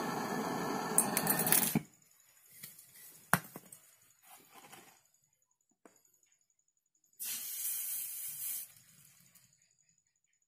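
Pressurised gas hissing steadily from a nozzle, then shut off abruptly about two seconds in. A sharp click and some faint handling noises follow, then a second burst of hiss lasting about a second and a half.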